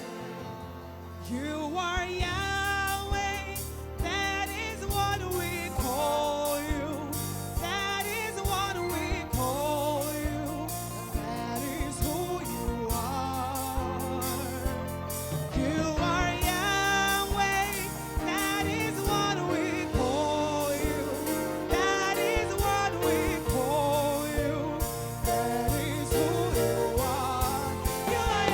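Gospel worship music: a singer's wordless melody over a band with keyboard, bass and a steady drum beat.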